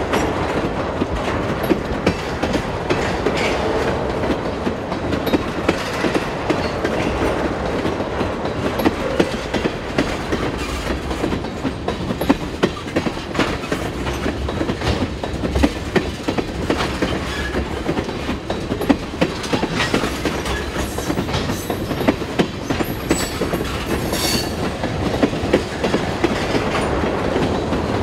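Freight train of tank cars rolling past close by: a steady rumble of steel wheels on rail, with frequent clicks and clunks as the wheels pass over the rail.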